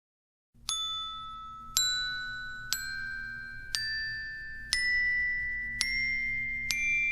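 Glockenspiel playing seven single notes about a second apart, climbing step by step up a scale, each note left ringing.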